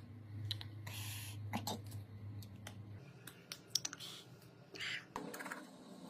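Scattered light clicks and a few short scraping sounds of small parts and tools being handled on a smartphone under repair, over a low hum that stops about three seconds in.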